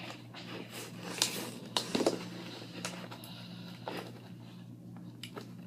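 Faint handling of a doll's box and packaging: a few light clicks and rustles over a low steady hum.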